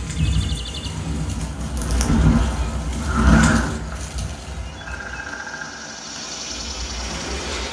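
Dolby Atmos movie demo soundtrack: deep rumbling bass with whooshing swells, loudest around two and three seconds in. A quick run of high chirps comes near the start.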